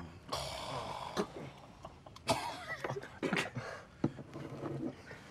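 Men coughing and gagging in several short bursts, stifled, at a blended drink of sushi, wasabi and soy sauce.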